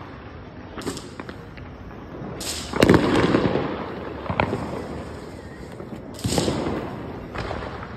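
Diwali firecrackers going off: several sharp bangs, each trailing off in an echo, the loudest about three seconds in, with more near four and a half and six seconds.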